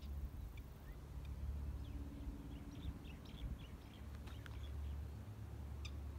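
Low wind noise on the microphone, with a scattering of short, high bird chirps in the middle.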